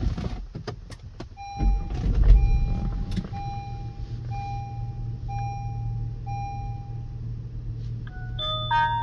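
A car engine cranks and starts, then idles with a steady low hum, while an electronic chime beeps about once a second. Near the end a short run of electronic notes sounds, like a device's power-on tune.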